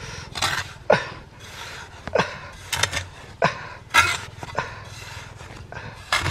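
Small steel shovel scooping and scraping sand, packing it around a buried pipe. A series of short scrapes comes about every half second, with a pause near the end.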